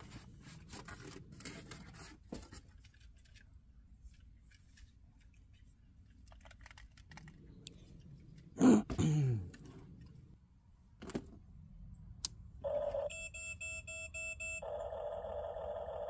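Huina 1554 RC bulldozer's sound module powering on: a run of pulsed electronic beeps starting about thirteen seconds in, then a steady synthesized sound effect. Before that, clicks and rustles of packaging being handled, and a short loud falling voice sound about nine seconds in.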